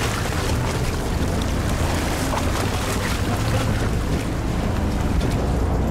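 Fishing boat's engine running with a steady low hum, with choppy sea water washing against the hull and wind on the microphone.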